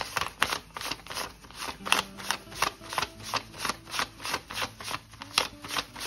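A stack of US $100 paper banknotes counted by hand, each bill flicked off the stack with a crisp paper snap, about four a second in an even rhythm.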